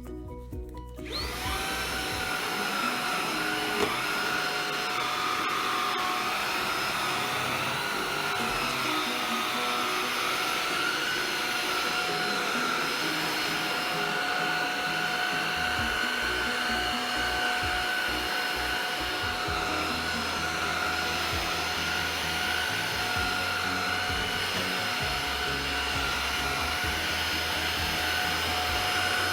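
Xiaomi Mi Handheld 1C cordless stick vacuum switching on about a second in, then running steadily with a high motor whine.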